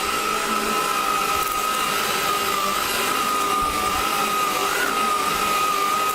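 Craftsman V20 cordless stick vacuum running while vacuuming: a steady high motor whine over rushing air, the pitch wavering slightly now and then.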